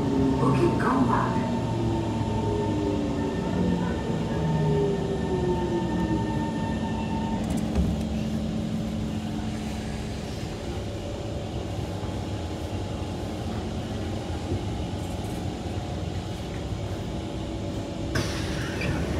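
Kawasaki C151 metro train braking to a stop in the station. Its motor tones fall in pitch over the first several seconds, then a steady tone cuts off as it halts, leaving the car humming at a standstill. Near the end there is a sudden rush of noise as the doors open.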